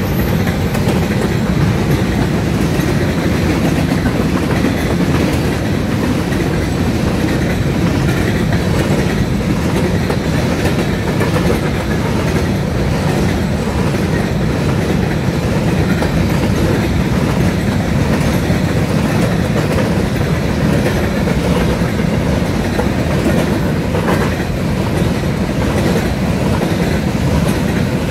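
Empty covered hopper cars of a westbound BNSF unit grain train rolling steadily past close by, steel wheels running on the rails with a continuous low rumble.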